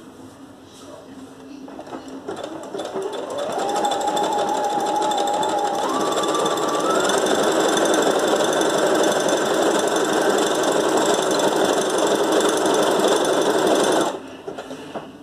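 Brother FS101 computerized sewing machine sewing a wide decorative stitch. It starts a couple of seconds in, and its motor whine climbs in steps as it speeds up. It then runs steadily and stops abruptly about a second before the end.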